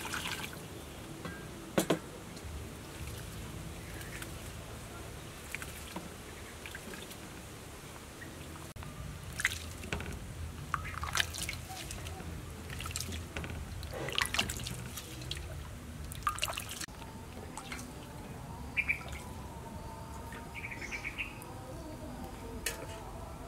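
Water poured into a steel bowl of grated coconut, then wet sloshing, squelching and dripping with scattered small splashes as hands squeeze the soaked coconut to press out coconut milk.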